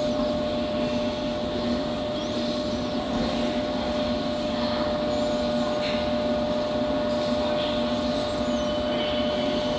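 London Underground S Stock train standing at the platform with its doors open, its onboard equipment giving a steady hum with a constant whine over it.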